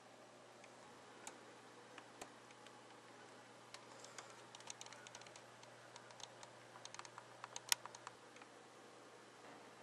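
Faint handling noise: scattered small clicks and taps, thickest between about four and eight seconds in, the sharpest near eight seconds, over a low steady hum.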